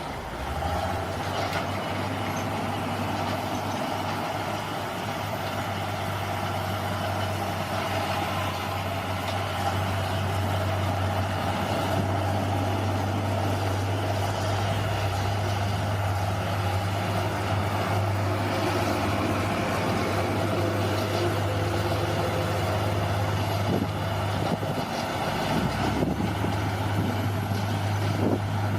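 Bulldozer's diesel engine running steadily with a deep, even hum, its note dipping briefly near the end.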